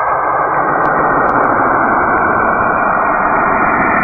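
Radio emissions from Saturn played back as audio: a steady, loud rushing noise like radio static.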